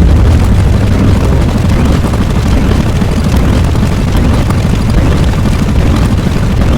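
A loud, steady explosion-like rumble sound effect, heavy in the deep low end, with no let-up.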